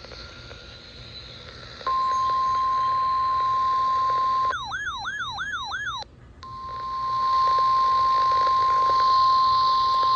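NOAA Weather Radio warning alarm: a steady single-pitch tone near 1,000 Hz that sounds when a warning is broadcast. It is briefly interrupted by a warbling tone that falls in pitch about three times a second, then the steady tone resumes. The alarm is preceded by faint radio hiss.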